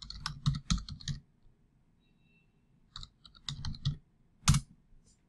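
Typing on a computer keyboard: a quick run of keystrokes, a pause of about two seconds, a second run, then one louder single keystroke near the end.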